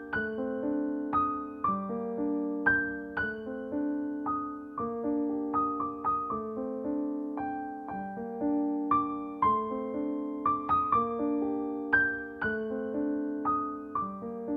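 Background solo piano music: a gentle melody of struck notes, each fading away, over repeating lower notes.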